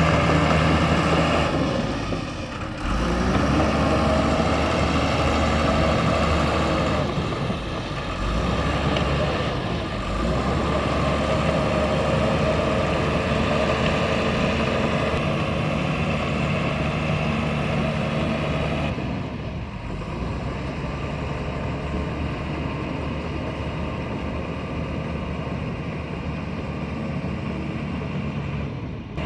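Caterpillar D5G bulldozer's diesel engine running while it works, its note shifting and dipping a few times, with a slightly quieter, steadier stretch in the last third.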